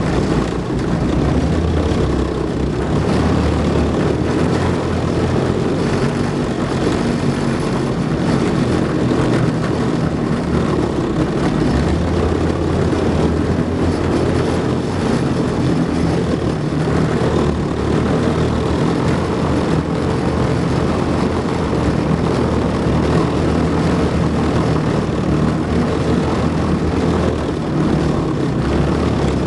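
Tracked infantry fighting vehicle driving on a dirt track: its engine and running gear make a loud, steady din, heard from on top of the hull.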